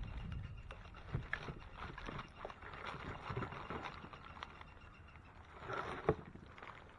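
Split firewood pieces knocking and clattering together as they are handled and stacked into a bundle, with one sharp, loud knock near the end.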